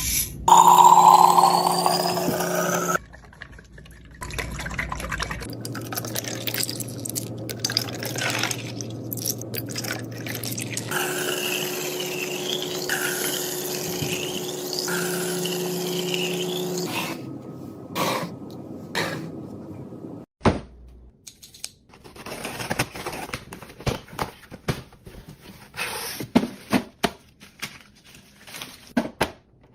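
Restocking sounds from several short clips: liquid being poured and containers filled, then a run of sharp clicks and taps as containers and lids are handled.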